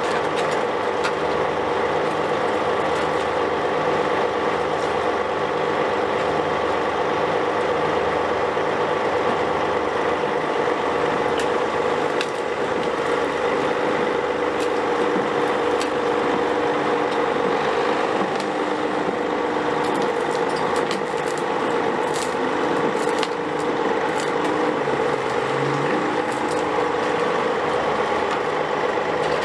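Heavy diesel engines of a Caterpillar 374 excavator transport running steadily, with a constant whine over the engine noise. Scattered clicks and rattles come in the second half.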